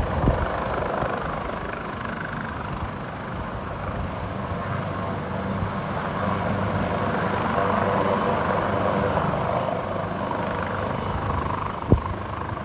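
Leonardo AW139 twin-turbine helicopter running nearby, a steady rotor and engine noise with a low throb that swells for a few seconds in the middle. A single sharp thump near the end.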